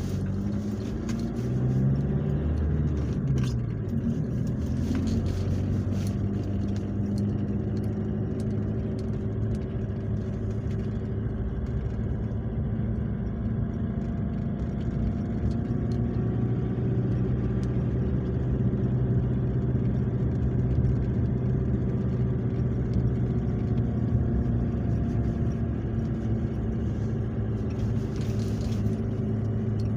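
Car engine and road noise heard from inside the cabin while driving. The engine pitch rises over the first few seconds as the car gathers speed, then it runs steadily.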